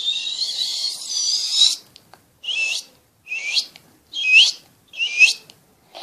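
A person imitating a bird by mouth-whistling: a long, breathy, hissing whistle with a wavering tone, then four short swooping chirps about a second apart.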